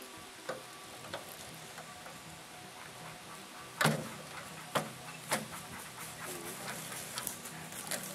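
Metal clinks and clanks from the sheet-metal panels and legs of a Poshehonka tent stove being fitted together by hand: a few light clicks, then a sharp clank about four seconds in and two more within the next second and a half.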